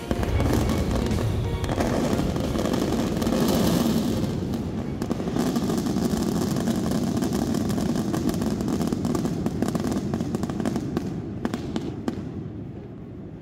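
Fireworks going off in quick succession with dense crackling, over background music. The sound dies down about a second before the end.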